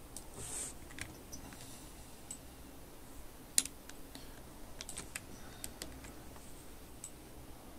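Faint, scattered clicking of a computer keyboard and mouse, with one sharper click about three and a half seconds in and a quick run of clicks around five to six seconds in.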